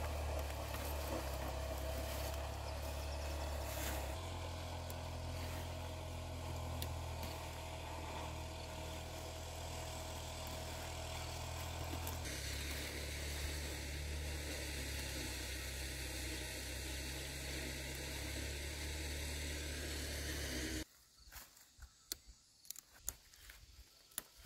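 Steady low outdoor rumble that shifts abruptly twice and then drops away about three seconds before the end. What is left is scattered faint rustles and snaps of yardlong bean vines and pods being picked by hand.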